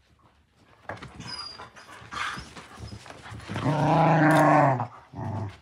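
Beagle puppies play-growling during a tug of war over a toy, with scuffling noises and one long, loud growl about three and a half seconds in.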